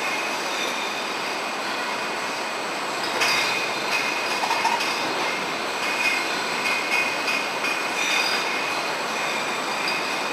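Overhead conveyor carrying stemmed wine glasses on a glassware production line, running with a steady hiss and several high whining tones that swell and fade, plus a few light ticks.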